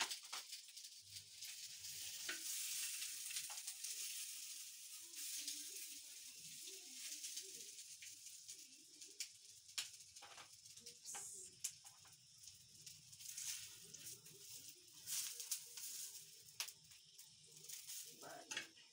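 Sausages sizzling in hot oil in a frying pan, a steady hiss, with scattered sharp clicks of a utensil against the pan as they are turned and lifted out.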